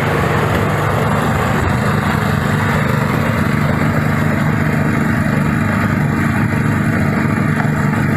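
Motor-driven clove threshing machine running steadily, a constant mechanical drone that does not change.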